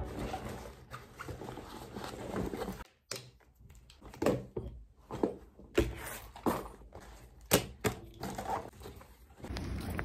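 Belongings being packed into a backpack on a desk: a string of light knocks, taps and rustles from about three seconds in, as things are picked up, set down and slipped into the bag. Before that there is only a steady background hum.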